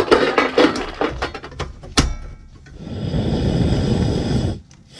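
Metal clatter as a two-burner propane camp stove's grate and knob are handled, then a sharp click about two seconds in as the burner is lit, followed by the steady rush of the gas flame burning.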